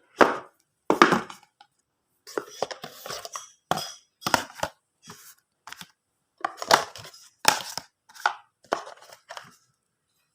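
Irregular knocks, clacks and short scrapes of small hard objects being handled on a surface, about a dozen with short gaps between.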